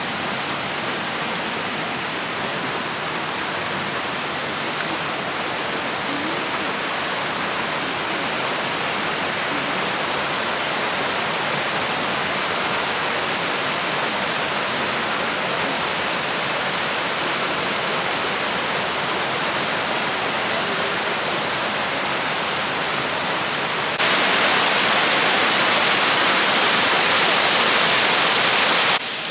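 Steady rush of falling water from Yoro Falls, a waterfall. About 24 seconds in it becomes suddenly louder and brighter for about five seconds, then drops back to its earlier level.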